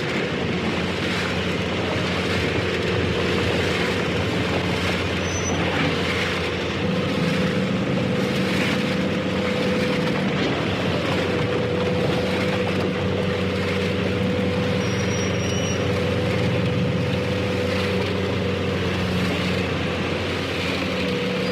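Tractor harvester running steadily: a continuous low engine hum under dense mechanical noise. A brief high-pitched squeal comes about five seconds in, and another about fifteen seconds in.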